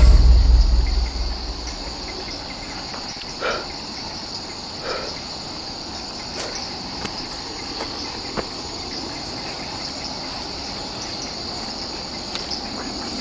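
A steady night chorus of chirping crickets. A deep low rumble dies away over the first second or so.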